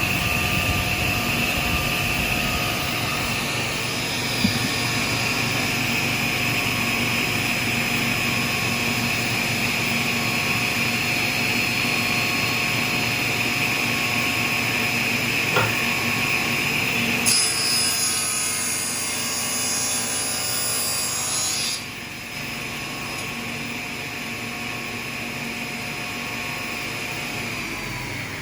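SCMI sliding table saw with a 12-inch blade, running steadily. For about four seconds partway through it cuts a piece of wood with a harsher, brighter sound, and it pushes through a little tough, which the owner takes as a sign that the blade needs sharpening. Near the end its pitch begins to fall as it winds down.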